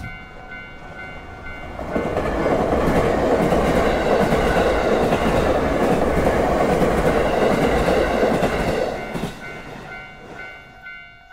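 A train passing through a level crossing: its rumble builds about two seconds in, holds, and fades after about nine seconds. Under it the crossing's warning bell rings in a steady, evenly repeated clang, heard plainly at the start and again as the train fades.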